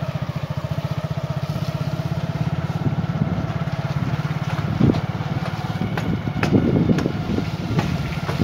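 Engine running steadily at low speed with a rapid, even throb, from the vehicle carrying the camera. Several sharp knocks and rattles come in the second half.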